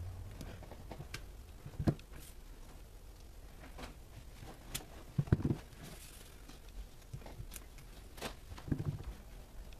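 Clear acrylic stamp block with photopolymer stamps pressed down repeatedly onto cardstock over a stamping mat. Three soft thumps come a few seconds apart, the middle one the loudest, with light clicks of the block between.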